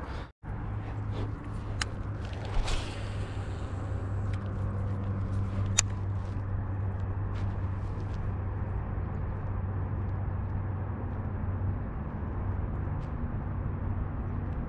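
A steady low hum like a small motor running, easing off near the end, with a few light clicks in the first few seconds.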